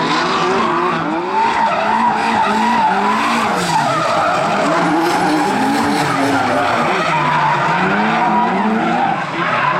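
Two drift cars in a tandem battle: their engines revving up and down at high revs, over the continuous noise of tyres skidding and squealing.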